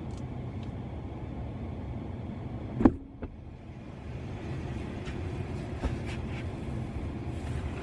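Steady low rumble of a parked car, heard from inside its cabin, with one sharp knock about three seconds in and a fainter one just after.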